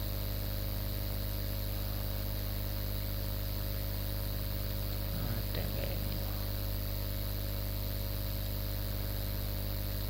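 Steady electrical mains hum with background hiss, and a brief faint sound about halfway through.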